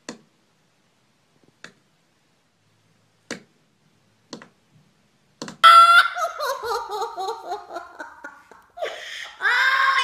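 Laughter in quick pulses, falling in pitch, starting about halfway through after near silence broken by a few faint clicks; a second laugh rises and then falls near the end.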